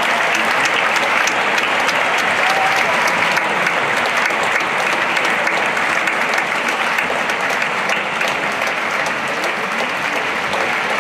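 Large theatre audience applauding steadily through a curtain call, with a few brief voices calling out above the clapping.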